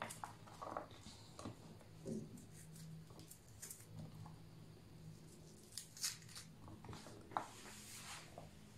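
Faint kitchen prep sounds: a chef's knife cutting onion on a wooden cutting board, and onion pieces being separated by hand, heard as scattered soft clicks, taps and scrapes.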